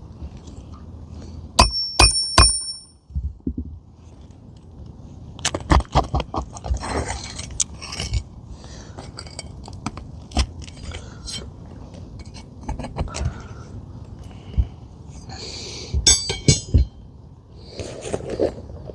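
A hammer taps a flat pry bar three times about two seconds in, sharp metallic strikes that ring on briefly, as the bar is worked under asphalt shingles to free roofing nails. Scattered clicks, scrapes and rustling of shingles and tools follow, with another quick run of taps near the end.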